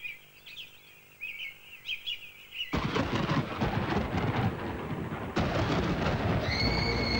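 Birds chirping, then about three seconds in a sudden loud crash that keeps on rumbling. It grows heavier halfway through, and a high held tone comes in near the end.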